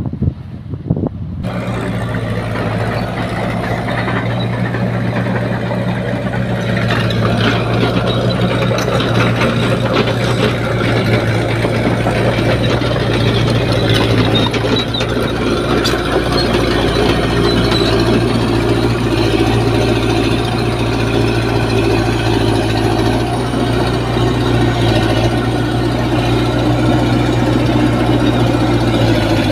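Heavy diesel engines of a dump truck stuck in mud and a Caterpillar excavator running steadily, with a constant low hum. The sound starts abruptly about a second and a half in and grows fuller a few seconds later.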